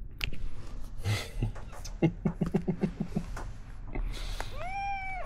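A ginger kitten gives one high-pitched meow near the end, rising and then falling, over rustling and handling noises as it is picked up. About two seconds in there is a brief low, rapid stutter of pulses lasting about a second.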